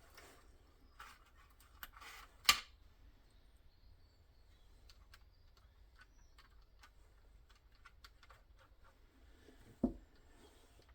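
Scattered small clicks and taps of hand tools and small electronic parts being handled on a workbench, with one sharper click about two and a half seconds in and a dull knock near the end.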